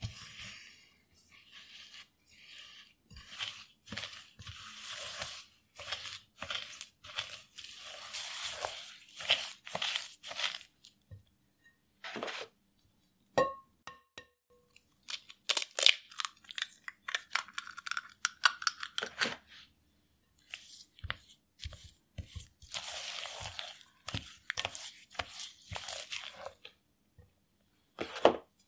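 Butter and brown sugar being creamed with a silicone spatula in a glass bowl: repeated gritty scraping strokes against the glass. About halfway there is a sharp click with a short ring as an egg is cracked, and the spatula then works the egg into the wet batter with softer strokes.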